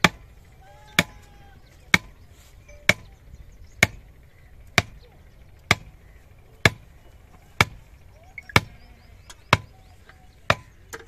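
Evenly spaced sharp knocks, about one a second, each with a short ring: a tool striking the tubewell pump's metal casing.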